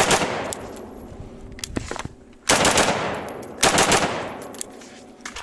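Rapid strings of gunshots on a firing range: a quick burst right at the start, then two more quick strings about 2.5 and 3.6 seconds in, each shot cracking sharply with an echo trailing off after each string.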